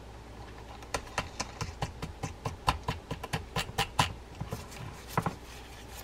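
Quick, irregular small metal clicks from an Abu Garcia A20LC reel's drive side as the star drag is threaded onto the shaft and turned: a run of about twenty from about a second in, then two more near the end.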